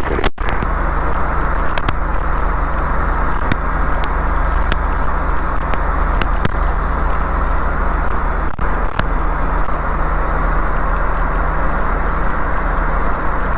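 Light aircraft's piston engine and rushing air droning steadily in the cockpit, with a few faint clicks now and then.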